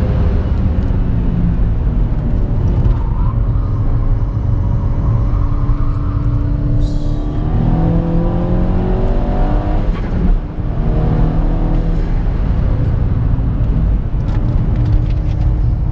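Tuned Seat Leon Cupra 1P's turbocharged 2.0-litre four-cylinder engine under hard acceleration, heard inside the cabin. Its pitch climbs again and again, dropping back briefly at gear changes, notably about ten seconds in.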